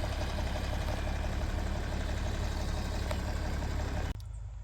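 Tractor engine running steadily at a low, even idle, cutting off abruptly about four seconds in and leaving only a faint low hum.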